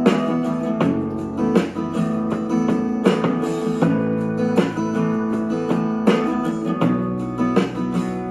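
A song led by guitar, plucked and strummed with a strike about every three-quarters of a second, played back through a Zebronics Zeb-County 3 portable Bluetooth speaker at about 90% volume.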